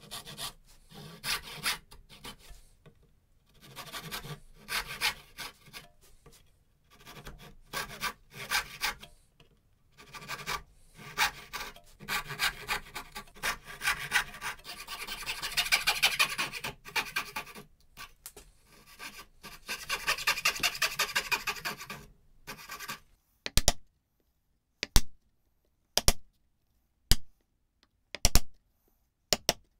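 Brass-backed dovetail saw cutting into hardwood by hand, quick back-and-forth strokes in runs of several seconds with short pauses between cuts. About three-quarters of the way through the sawing stops and is followed by a series of single sharp knocks, about one a second, as a chisel chops out the waste between the dovetails.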